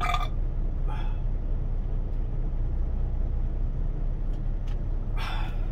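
Kenworth T680 semi-truck's diesel engine idling steadily, a low drone heard from inside the cab.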